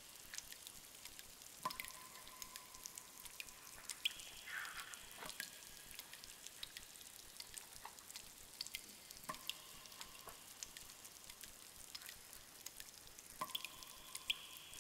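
Cave ambience: water dripping, many small scattered drips with now and then a drop that rings briefly with a clear plink, over a faint steady hiss.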